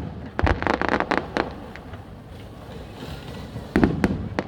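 Fireworks going off: a deep bang followed by a quick run of sharp cracks, then a second cluster of cracks near the end.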